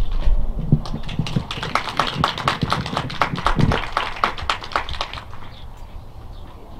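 Small audience applauding, a dense patter of hand claps that thins out and fades after about five seconds.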